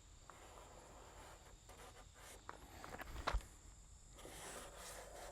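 Faint footsteps shuffling, with a few light knocks, the loudest about three seconds in.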